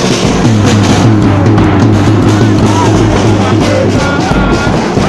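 Loud live drum-band music, with a bass drum beaten with padded mallets and a steady low note running through most of it.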